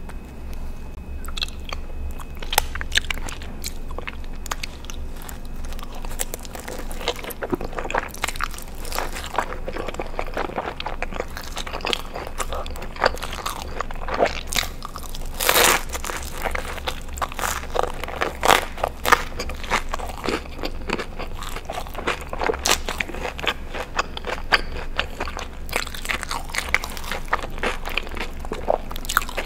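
Close-miked chewing and biting of pepperoni pizza topped with cheesy alfredo pasta: a steady run of short mouth clicks and crunches, with one louder, longer bite about halfway through.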